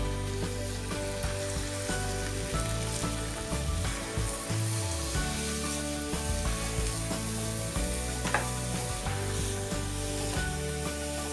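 Grated bottle gourd sizzling in hot ghee in a nonstick pan while a wooden spatula stirs and spreads it, with one sharp knock of the spatula about eight seconds in. Soft background music plays underneath.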